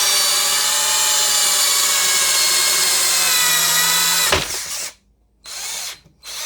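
Cordless drill motor spinning at speed with a steady whine for about four seconds, then stopping, followed by two short trigger bursts.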